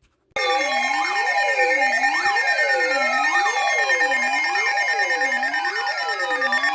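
Electronic emergency alert tone signalling an incoming severe thunderstorm warning. It starts abruptly about a third of a second in: a wailing tone sweeps up and down about once a second over steady beeping tones and slowly falling whistles.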